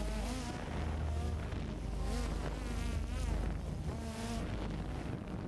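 Quadcopter drone's propellers buzzing like a bunch of bees, the pitch wavering up and down in quick sweeps as the motors change speed, over a steady low wind rumble on the microphone.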